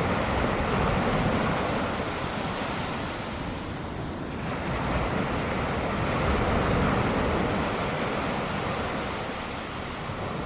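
Ocean surf: waves breaking and washing in as a steady rushing noise that swells and eases twice.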